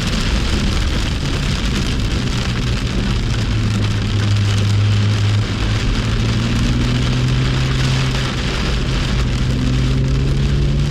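Heavy rain and spray hissing over the BMW M2's turbocharged straight-six engine. The engine note holds steady, then rises slowly through the second half as the car accelerates.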